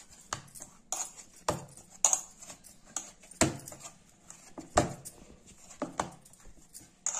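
Ragi dough being kneaded by hand in a metal kadai: irregular knocks and light scrapes as the dough ball is pressed and turned against the pan, with a few louder knocks.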